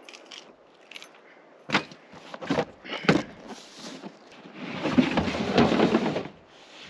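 Camping gear being handled: a few sharp knocks and clatters, then about two seconds of loud rustling and rattling.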